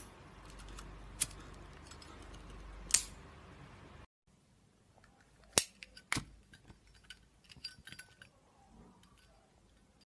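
Zippo lighter's hinged metal lid being flicked open and snapped shut: a series of sharp metallic clicks spaced a second or more apart, the loudest about three seconds and five and a half seconds in, with a few fainter clicks near the end.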